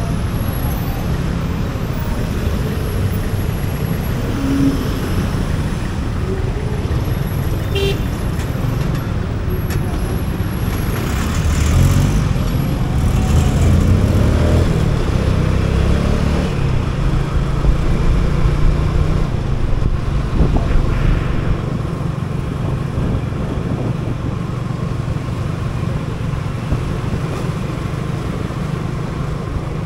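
Motor scooter riding through busy city traffic: its small engine running amid the steady rumble of cars, motorcycles and a songthaew truck close alongside, louder for several seconds in the middle.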